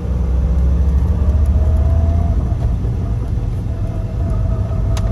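Lada Niva driving on the road, heard from inside the cabin: a steady low engine and road rumble. A faint whine slowly rises in pitch, and there is one short click near the end.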